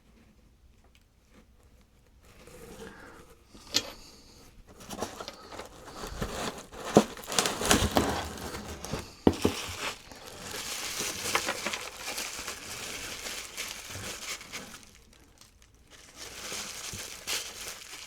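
Packing wrap crinkling and rustling as it is pulled open by hand, with a few sharp clicks along the way. It starts a couple of seconds in, pauses briefly near the end, then resumes.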